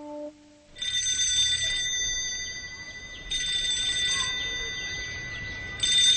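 Telephone bell ringing in three long rings, the first starting about a second in. Just before the first ring, the last held note of a short tune fades out.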